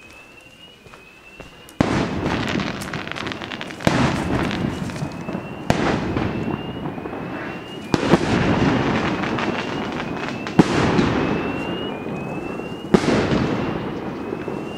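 Fireworks bursting in the air: six sharp bangs about two seconds apart, each followed by a long crackling hiss that fades. Behind them a fire alarm sounder gives a rising whoop about once a second.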